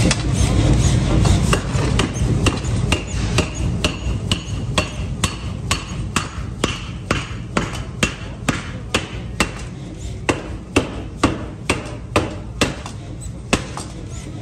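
Forging power hammer striking a red-hot steel rotavator stub-axle blank in its die, an even run of about two sharp blows a second. A steady low rumble from the running machine lies under the blows, and the metal rings faintly after some of them.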